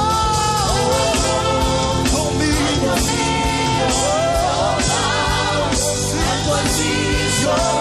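Live gospel worship music: sung vocals over a band with a steady beat and sustained keyboard chords.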